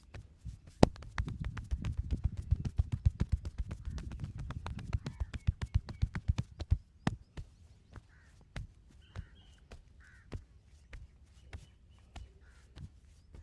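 Massage percussion: hands rapidly tapping and slapping on a body, a fast run of sharp slaps with dull thumps for about six seconds, then slower, scattered taps.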